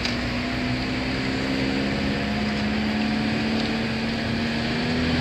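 A car's engine and tyre noise heard from inside the cabin while driving: a steady, even drone with no changes in pitch.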